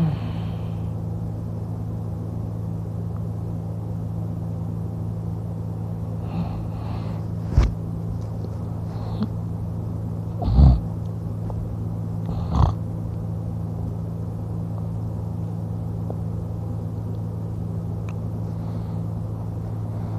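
A man snoring in his sleep, lying on his back with his mouth open: a few short, irregular snorts in the middle stretch, over a steady low hum.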